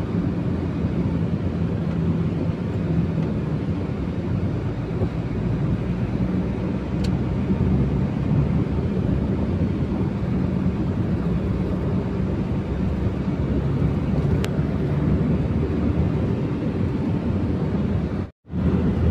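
Mitsubishi Strada diesel pickup cruising at road speed, heard from inside the cab: a steady low engine and road hum. Two faint clicks come partway through, and the sound cuts out briefly near the end.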